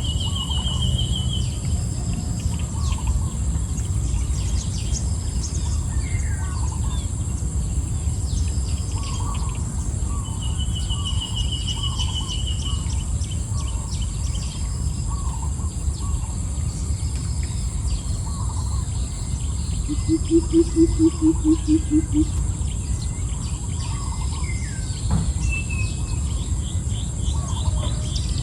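Birds and insects calling: a steady high insect drone, small chirps every second or two, and a rapid high trill twice. About two-thirds of the way through comes a louder, low, rapidly pulsing call of about eight beats. A low rumble runs underneath.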